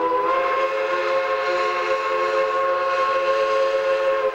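Steam locomotive's whistle blowing one long, steady blast, a chord of several notes sounding together.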